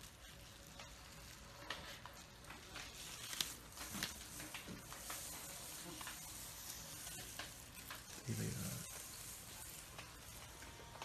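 Faint crinkling and crackling of a snake's dry shed skin being peeled back by hand off the new scales, with many small clicks. A soft low bump about eight seconds in.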